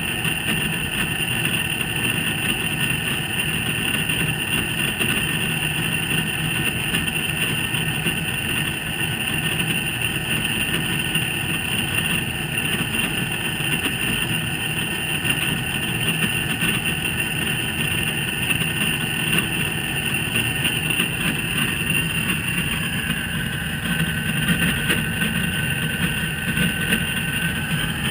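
A 2008 Hitachi Big Drum drum washer-dryer making a loud, continuous metallic noise with a steady high whine as the drum turns in its post-spin loosening ('hogushi') phase. A second, lower tone comes in about three-quarters of the way through. This is an abnormal noise that has come on only in this phase after years of use, a fault the owner means to have the maker check.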